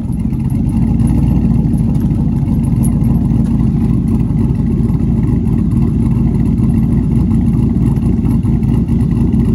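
Pickup truck engine idling steadily out of its dual exhaust tips just after a cold start, getting a little louder about a second in.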